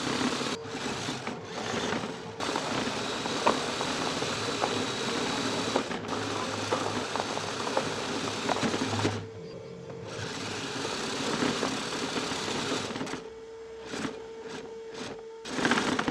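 Kyosho Blizzard RC snowcat's small electric motor and geared track drive whirring at close range as it drives through snow. The sound cuts out briefly a few times, drops back about nine seconds in, and comes in several short surges near the end as the throttle is blipped.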